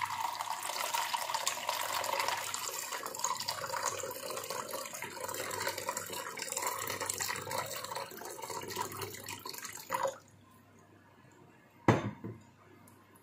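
Drinking water poured in a steady stream into a glass bowl of ice cubes, splashing and bubbling for about ten seconds before it stops suddenly. A single short knock follows near the end.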